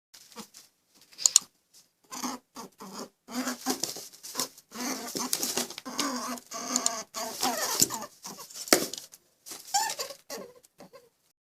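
An animal making a rapid series of short, irregular calls and noises, with brief pauses between them.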